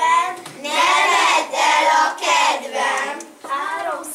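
A group of children singing together in short phrases, with a dip about three and a half seconds in before the next phrase starts.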